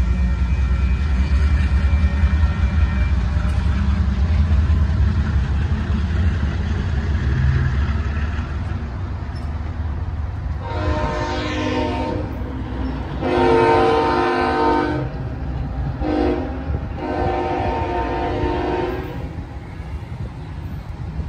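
Union Pacific diesel locomotive's multi-chime air horn sounding the grade-crossing signal as the train approaches: two long blasts, one short, then a final long one. A steady low rumble fills the first several seconds before the horn.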